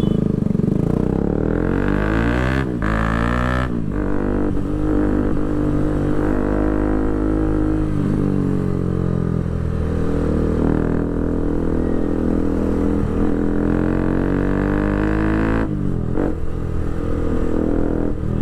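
Bajaj Pulsar RS200's single-cylinder engine through an Akrapovic full titanium exhaust with its dB killer removed, accelerating under way. The pitch rises and breaks at two quick upshifts in the first four seconds, then settles into a steady cruise, with another brief shift near the end.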